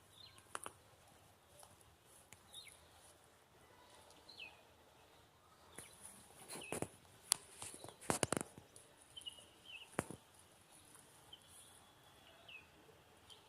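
A bird giving short, downward-sliding chirps every second or two, with several sharp clicks or knocks, the loudest in a cluster about eight seconds in.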